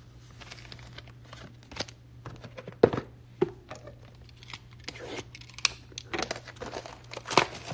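Shrink-wrapped cardboard box of trading cards being handled on a tabletop: plastic wrap crinkling, with a string of sharp knocks and taps. The loudest knocks come about three seconds in and near the end.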